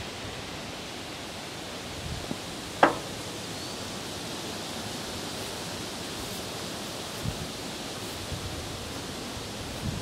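Steady outdoor background hiss with no machine running, broken once by a single sharp click a little under three seconds in.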